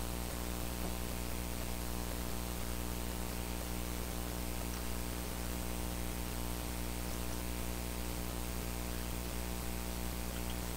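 Steady electrical mains hum with its overtones, a faint high-pitched whine and a background hiss. A few faint small clicks come from a small tool prying at the bulb's circuit board.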